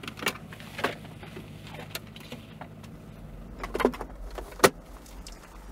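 Steady low rumble inside a moving car, with a series of sharp clicks and small rattles, the loudest near the end, from a hand rummaging low beside the driver's seat for a pill bottle.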